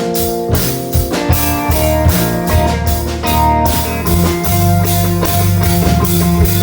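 A band playing rock music live: guitar over a drum kit, with steady drum hits throughout.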